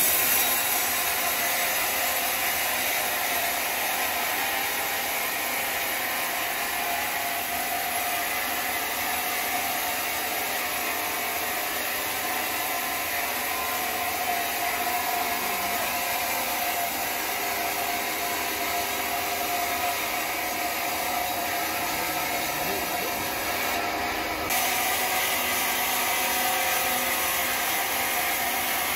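Log band sawmill running with a steady whirring noise and a faint hum, a little louder near the end.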